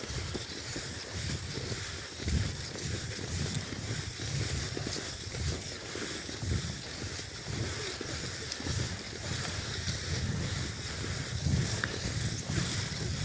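Cross-country skis sliding and creaking on cold snow, stride after stride, with low rumbles from wind on the microphone.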